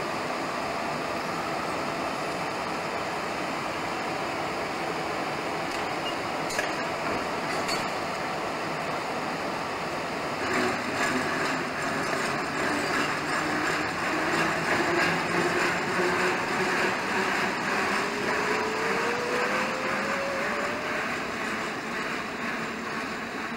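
A train of passenger coaches rolls slowly through the station: a steady rumble that grows louder about halfway through, with fast clicking from the wheels on the rails. Over the last few seconds a whine rises steadily in pitch.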